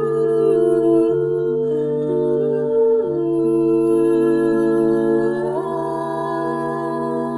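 An a cappella vocal group humming sustained chords without words, the voices holding each chord and then moving together to a new one a few times.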